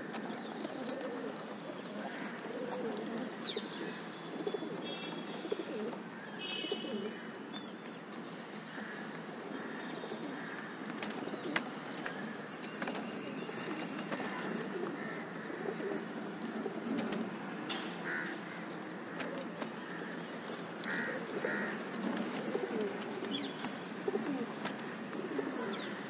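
A flock of rock pigeons cooing continuously while feeding, with many sharp taps of beaks pecking grain on the ledge. A few brief higher chirps from a smaller bird come about 4 to 7 seconds in.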